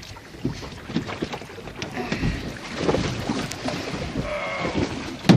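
Wind on the microphone and water sloshing around a kayak, with scattered short knocks and splashes.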